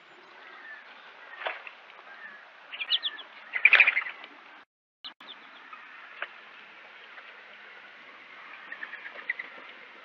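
Wild birds at a feeder: short chirps and calls, with a loud flurry of wingbeats about four seconds in as birds land on the seed tray. The sound cuts out for a moment just after, then a few more chirps follow near the end.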